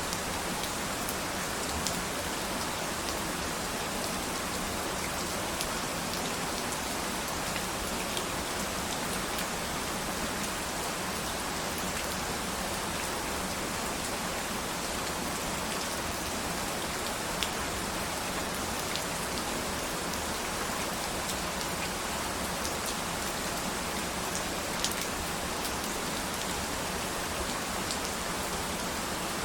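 Steady rain falling, an even hiss with a few sharper single drop ticks scattered through it.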